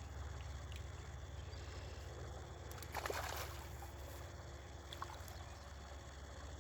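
A short splash in pond water about three seconds in, the loudest moment, over a steady low rumble, with a faint click around five seconds.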